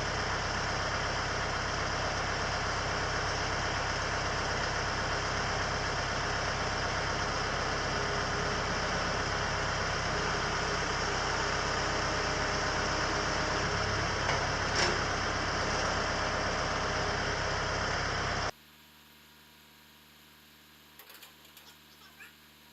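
A motor running steadily, which stops suddenly about eighteen seconds in. After that there is faint room tone with a few small clicks.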